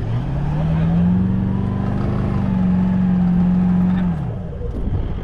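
An engine revs up over about a second, holds a steady pitch for about three seconds, then drops away near the end.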